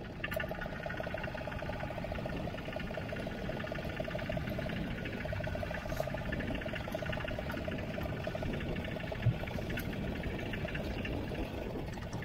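Fishing boat's engine running steadily with a fast even pulse, over the wash of water along the hull, and a single sharp knock about nine seconds in.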